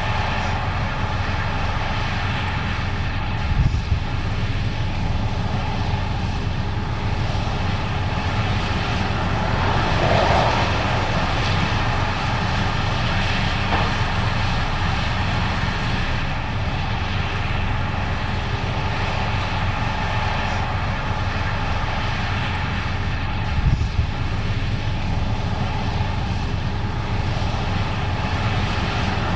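Case IH 8250 Axial-Flow combine running steadily, a dense engine and machinery drone. Two short low thumps, one about four seconds in and another some twenty seconds later.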